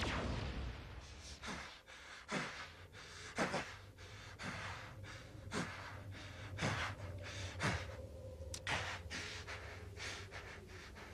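Heavy, ragged panting of a man catching his breath, a breath about once a second. A loud rumble is fading out in the first second.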